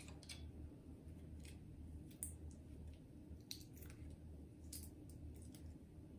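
Faint scattered clicks and light rustling as a pair of beech-wood chopsticks and the paper label on them are handled, over a low steady hum.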